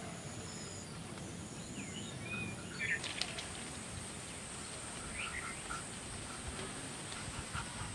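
Quiet rural outdoor ambience: scattered bird chirps, with a steady high-pitched drone joining about three seconds in.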